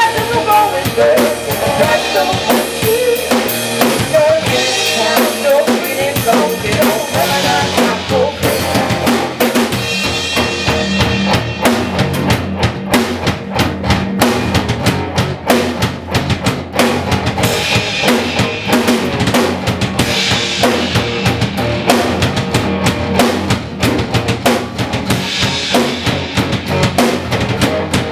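Rock band playing live: electric guitar, electric bass and a drum kit, with a steady driving kick-and-snare beat to the fore.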